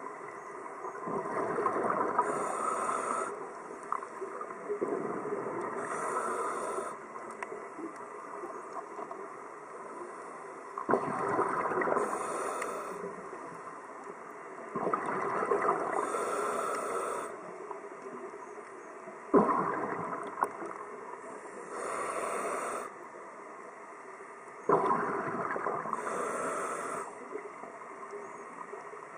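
Scuba diver's breathing through a regulator, heard underwater: a rush of exhaled bubbles with a hiss between, repeating about every four seconds.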